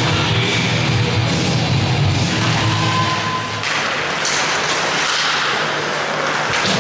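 Rock music playing over an ice rink's PA during a faceoff, cutting off about three and a half seconds in. After it come the hiss and scrape of skates and play on the ice.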